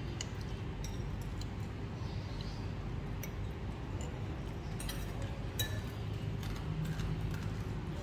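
A spoon and chopsticks clinking lightly against a noodle bowl, a few scattered clicks, over steady low background noise.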